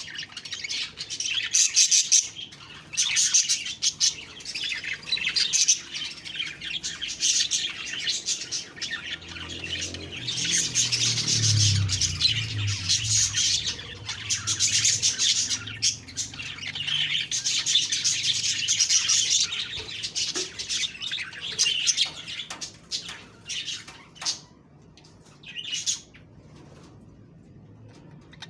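Budgerigars chirping and warbling in quick, busy chatter, which thins out and falls quiet in the last few seconds.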